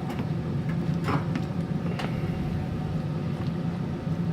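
A spoon knocking lightly against a cooking pot a few times as the curry is stirred, over a steady low hum.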